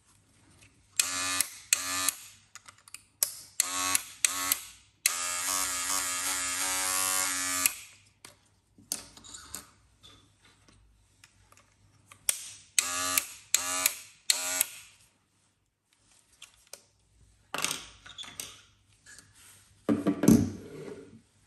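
Wahl Magic Clip Cordless hair clippers buzzing in short on-off bursts: several brief runs, then one of about three seconds, then three more brief runs. Handling knocks come near the end.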